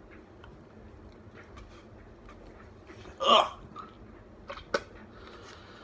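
A tobacco dipper spitting into a foam cup: one short sound from the mouth about three seconds in, two small clicks, and a sharp knock right at the end.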